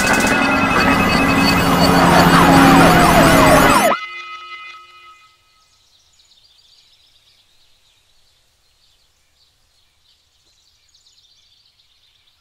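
Many emergency sirens wailing over one another, layered with steady alarm tones, loud and dense, then cutting off abruptly about four seconds in. After that only a faint, high background hiss remains.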